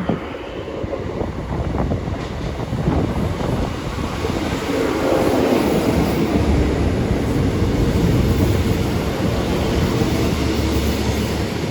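Two coupled Class 150 Sprinter diesel multiple units running into the station, their diesel engines and wheels on the rails growing louder over the first few seconds and then holding steady.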